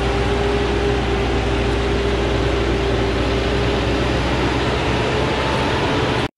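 Diesel engine of a Forland truck loaded with acacia logs, under load as it climbs a steep dirt track: a loud, steady, heavy drone with a held hum. It cuts off suddenly near the end.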